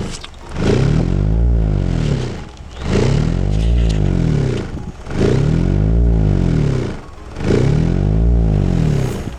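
A 12-inch subwoofer playing a deep bass tone that swells and dips in a regular cycle about every two and a half seconds, run to break in the new driver.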